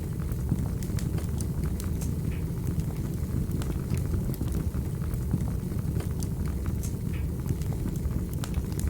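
Wood fire crackling in a fireplace: irregular sharp pops and clicks, several a second, over a steady low rumble of burning.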